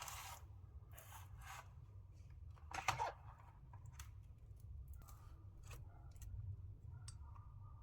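A series of short scratchy, snipping-like noises and light clicks, the loudest about three seconds in, as small PC parts are worked on by hand, over a low steady hum.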